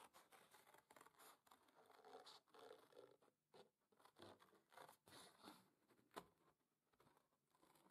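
Faint snips of steel scissors cutting through thin cardboard: a series of short crunching cuts starting about two seconds in, the sharpest about six seconds in.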